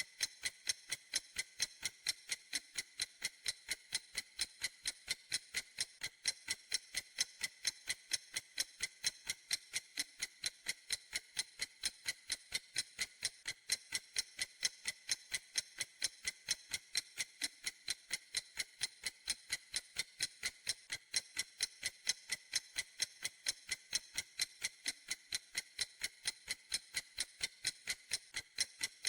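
Clock ticking steadily: light, high-pitched ticks, evenly spaced, a few every second.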